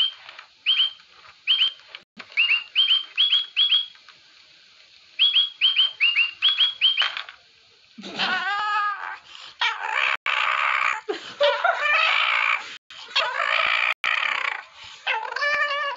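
Short, high bird-like chirps, each dropping quickly in pitch, repeated in quick runs of two to five. About halfway through, a bulldog puppy lying on its back starts whining and yowling in long, wavering cries.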